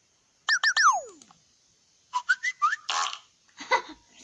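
A comic notification sound played through an iPad's speaker: three quick falling whistle glides, then a run of short rising chirpy notes and two brief noisy bursts near the end.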